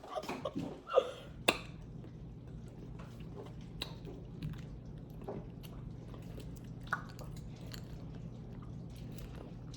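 A person chewing food close to the microphone, with scattered wet smacks and small clicks of eating. A steady low hum runs underneath.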